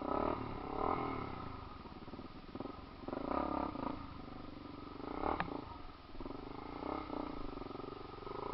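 Off-road vehicle engine revving in repeated bursts under load, rising and falling, with one sharp knock about five seconds in.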